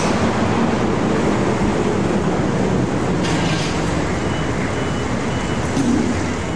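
City street traffic: a steady mix of car and truck engines and tyres, with faint repeated high beeps between about four and five seconds in.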